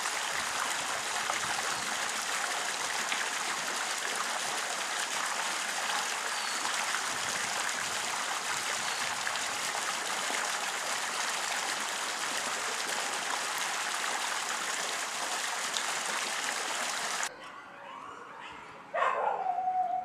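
Steady rushing noise, like running water or wind, which cuts off abruptly near the end. About a second later comes a short pitched call that falls in pitch and then holds.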